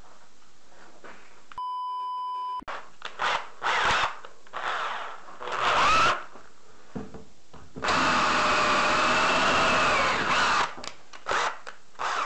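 A one-second censor bleep about two seconds in. It is followed by a Makita 18 V cordless drill run in several short bursts and then held on for two to three seconds.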